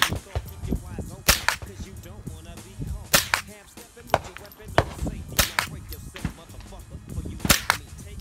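.22 rifle firing single shots at an uneven pace: about ten sharp cracks, several coming in quick pairs, each with a short ring after it.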